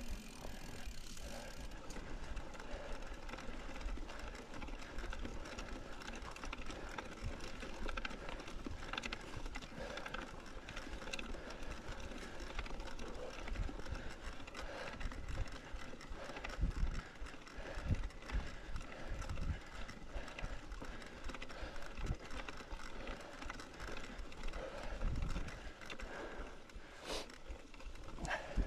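Mountain bike being ridden over rough ground: tyre noise, with the chain and frame clicking and rattling and irregular low knocks as it goes over bumps.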